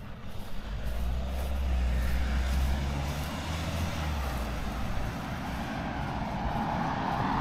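An SUV driving past on the road: a low engine rumble with tyre hiss that builds over the first couple of seconds and dies away after about four and a half seconds. Near the end the tyre noise of another approaching vehicle rises.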